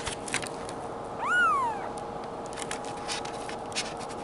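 Two-week-old Bengal kitten giving one short, high mew, rising then falling in pitch, a little over a second in, with light clicks of handling around it.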